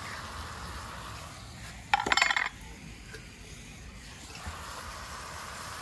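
A short clatter of metal cookware clinking against metal, such as the aluminium wok's lid or a utensil knocking the pan, lasting about half a second about two seconds in. The rest is a low, steady background.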